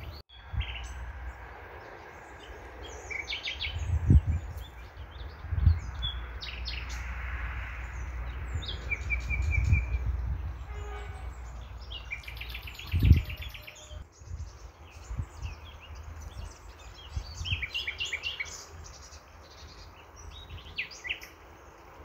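Several small birds chirping and trilling in short, high calls scattered throughout, over a steady low rumble with a few louder low thumps.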